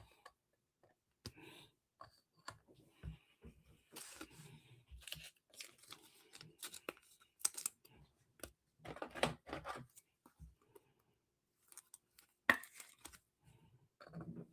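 Faint, scattered handling noises: light clicks and rustles of trading cards and foil pack wrappers being handled and torn.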